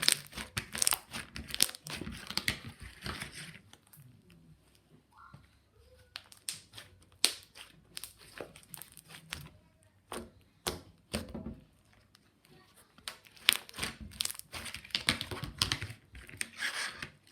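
Slime being squished and stretched by hand, with plastic diamond-shaped pieces mixed in, giving irregular bursts of sticky crackling and sharp clicks.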